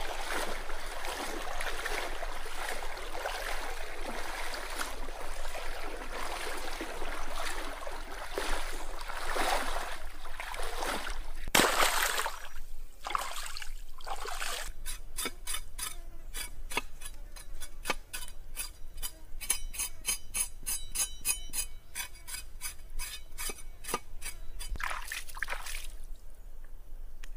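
Stream water splashing and sloshing as a person wades through it and then washes a pig's head in it by hand, with one loud splash about twelve seconds in. Through the second half there is a fast, even run of sharp clicks.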